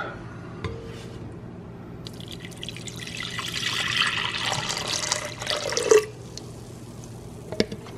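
Warm milk poured from a measuring cup into a glass stand-mixer bowl over yeast and oil: a steady splashing pour that starts about two seconds in and stops abruptly about six seconds in, with a few faint clicks before and after.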